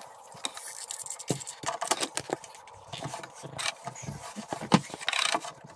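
Irregular small clicks, taps and rustling as hands press a cotton rope into the joint between wood paneling and the ceiling, with a short scraping rustle about five seconds in.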